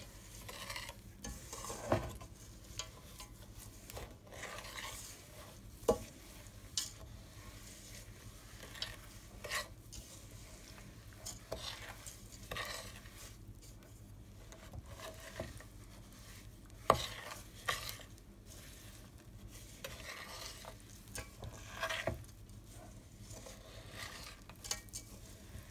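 Metal spoon stirring rolled oats and dried fruit through a sticky melted butter, sugar and golden syrup mix in a stainless steel saucepan. It makes a soft, irregular shuffling and scraping, with occasional sharp clinks of the spoon against the pan.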